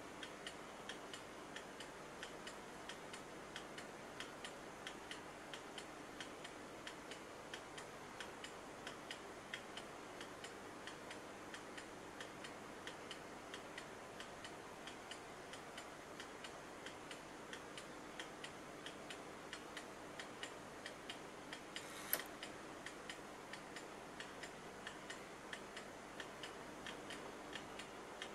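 English Empire Napoleon-hat mantel clock movement, bare out of its case, ticking steadily and evenly. One louder click sounds about three-quarters of the way through.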